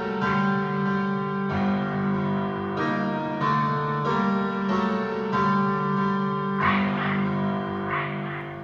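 Urbankiz dance music with sustained keyboard chords that change about every second, starting to fade out near the end.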